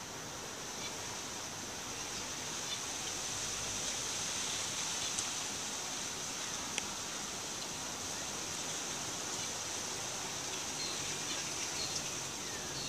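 Outdoor ambience: a steady high hiss, with faint short bird chirps here and there and a couple of light clicks.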